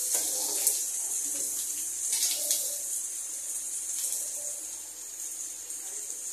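Chopped onions just tipped into hot oil in a kadhai, sizzling with a steady hiss as they start to fry. There are a few light clicks and taps of the ladle and plate.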